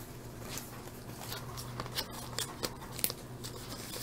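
Faint scattered clicks and rustles of trading cards and a foil pack being handled on a desk, over a low steady hum.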